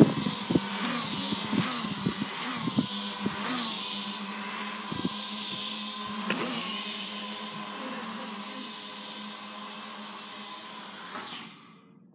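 Small toy quadcopter drone's propellers and motors whining steadily, the pitch jumping up briefly several times as the throttle is changed, with a few dull knocks in the first three seconds. The whine cuts off about eleven seconds in as the motors stop.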